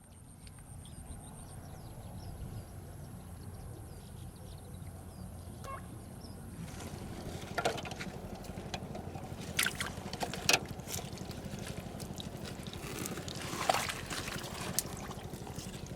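Water sloshing and splashing outdoors over a steady rough background, with several short sharp splashes in the second half.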